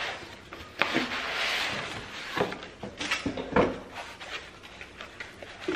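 Hands unpacking a cardboard box: foam sheets and packaging rustling and scraping, with several sharp knocks and taps as the box and its contents are handled.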